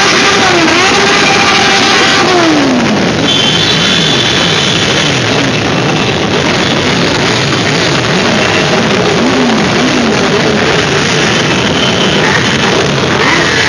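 Many motorcycle engines revving and passing in a dense procession, their pitches rising and falling and overlapping, with music mixed in.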